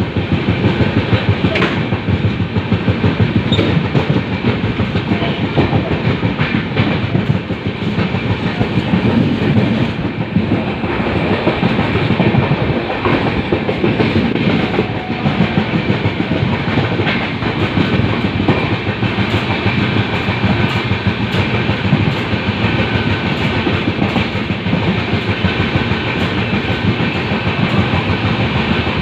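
Wheels of an LHB passenger coach clattering steadily over the rails of a train running at speed, with an even, fast rhythm of clicks over the track joints.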